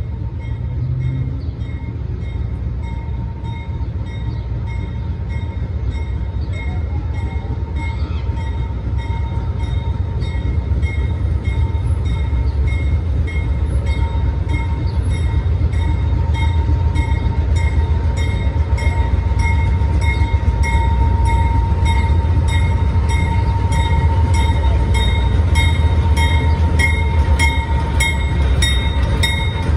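Lead diesel locomotives of a CSX freight train rumbling slowly closer, the low engine sound growing louder throughout. A grade-crossing bell rings steadily over it in an even repeating pattern.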